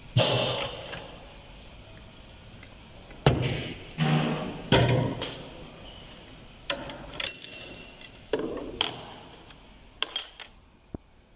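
Metal motorcycle fork parts being handled on a steel workbench as the fork spring and guide are taken out: a run of irregular knocks and clanks, several with a short metallic ring, ending in a few quick clinks near the end.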